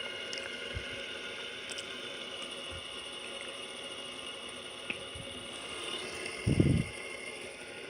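Fidget spinner whirring steadily on its bearing, with a dull thump about six and a half seconds in.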